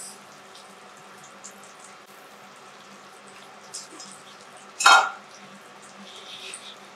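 Faint steady sizzle of offal cooking on a teppanyaki griddle, with small clicks of chopsticks and tableware. One short, loud sound comes about five seconds in.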